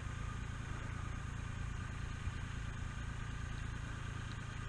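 An engine running steadily at idle, an even low pulsing hum that does not change.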